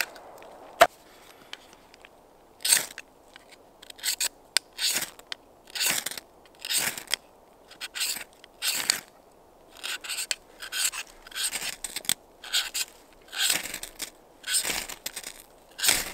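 A dry branch snapping with one sharp crack about a second in, then a knife spine scraped again and again down a ferrocerium rod, short rasping strokes about one to two a second, throwing sparks into a bundle of wood shavings until it catches.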